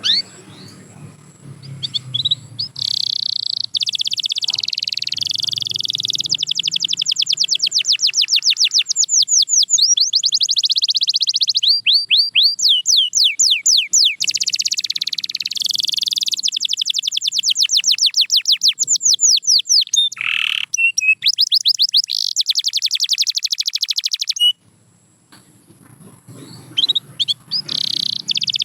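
A canary singing long song phrases made of fast trills of rapidly repeated sweeping notes. The song breaks off for a couple of seconds near the end, then starts again.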